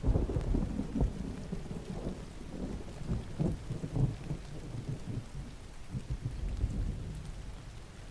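Steady rain falling while a thunder rumble breaks in suddenly at the start, rolling and crackling for several seconds before easing off near the end.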